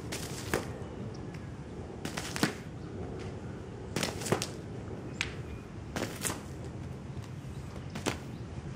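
Steady low background noise with scattered short, sharp taps or clicks, about ten in all, some coming in quick pairs.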